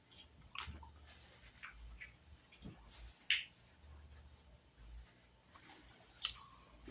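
Close-up eating sounds: scattered soft clicks and smacks of someone chewing food.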